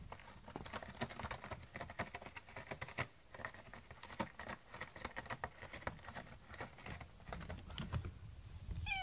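Cat scratching a corrugated cardboard scratcher with its claws: a quick, uneven run of dry scraping clicks. A short meow comes right at the end.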